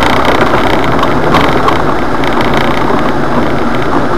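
Jeep Wrangler running steadily under load as it drives up a rough dirt trail, heard loud from inside the cab.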